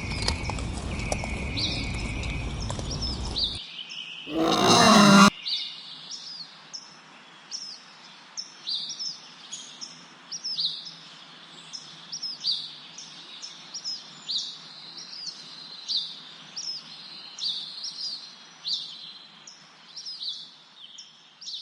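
A bird repeating a short, high, falling chirp about once every second over faint background noise. Before it, a low rough noise stops abruptly about three and a half seconds in, followed by a loud burst of noise lasting about a second.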